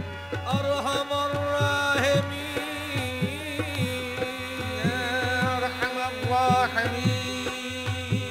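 Qawwali music: harmoniums holding steady drone-like notes over a regular hand-drum beat, with a singer's voice weaving ornamented rising and falling runs.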